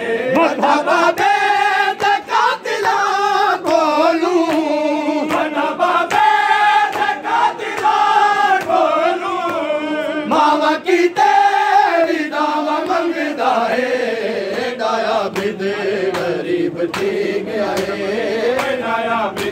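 A group of men chanting a noha, a Shia lament, in unison, with the sharp slaps of hands beating chests (matam) recurring over the singing.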